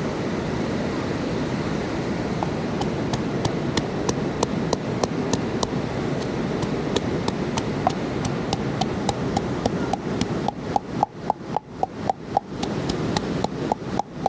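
Steady rhythmic chopping, about two or three strokes a second, beginning about three seconds in, over a steady rushing noise that eases off about ten seconds in, leaving the strokes standing out.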